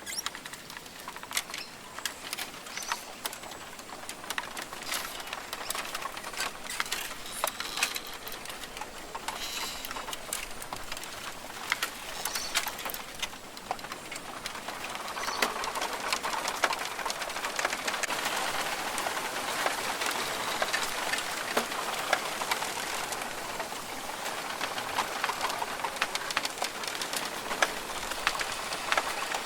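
Rainforest ambience: birds calling over a steady hiss, with many scattered sharp clicks; the hiss grows louder about halfway through.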